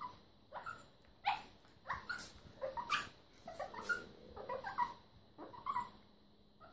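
Small shaggy dog making a string of short, high whimpers and yips, a dozen or so brief sounds with short pauses between them.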